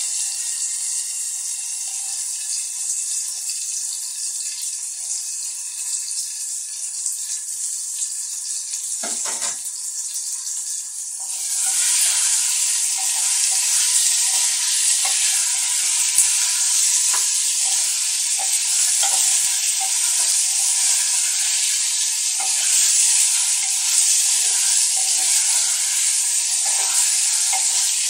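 Chopped okra sizzling as it fries in oil in a clay pot, the sizzle growing louder partway through. A wooden spoon scrapes and taps against the pot as the okra is stirred.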